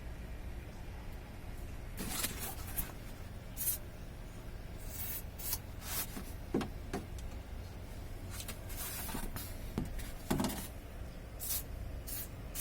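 WD-40 aerosol spray hissing in several short bursts, mixed with light clicks and handling noise.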